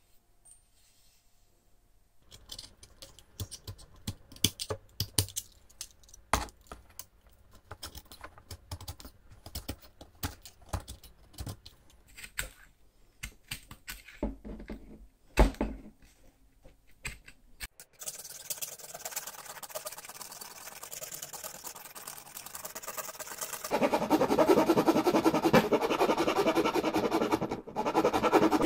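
A knife shaving a bamboo stick in short strokes, heard as irregular sharp clicks and scrapes. Then steady scraping, much louder in the last few seconds, as a flat metal file rasps along a thin bamboo rod.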